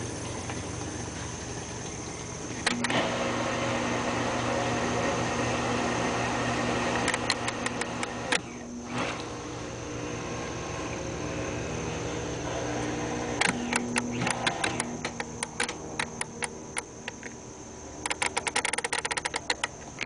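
Frigidaire dishwasher running a wash cycle: a steady motor hum with a rushing wash noise that grows louder about three seconds in. Several bursts of rapid clicking come and go over the top.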